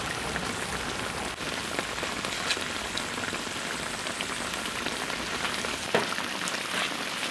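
Braised pork knuckle in its sauce sizzling and bubbling in a wok over high heat, a steady hiss with fine crackling as the sauce reduces.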